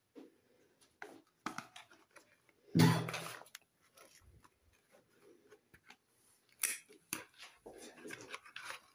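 Hands handling soap bars and their cardboard boxes: scattered light taps, scrapes and rustles, with one louder thump about three seconds in. Near the end comes a cardboard box being opened.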